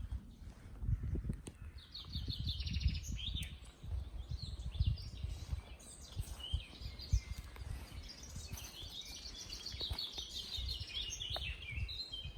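A songbird singing rapid trilled phrases: a short burst about two seconds in, then a longer run from about six seconds until near the end, over low rumbling and thumping noise.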